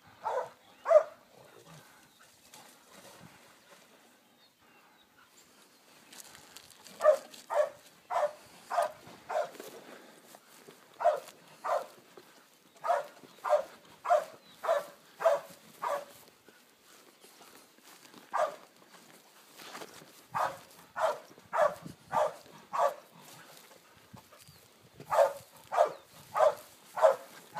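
A dog barking over and over at a wild hog, in runs of several short sharp barks with pauses of a few seconds between.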